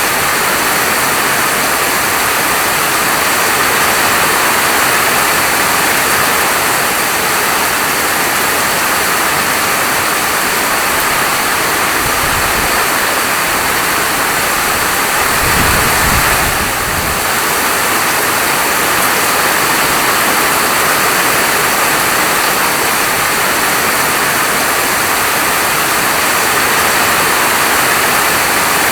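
Steady, heavy rainfall, an even hiss of falling rain. About halfway through there is a brief low rumble.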